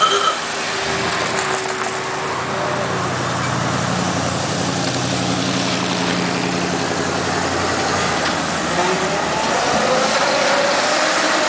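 Vintage woodie station wagons driving slowly past in a line, their old engines running at low speed with a steady low hum, plainest in the first half.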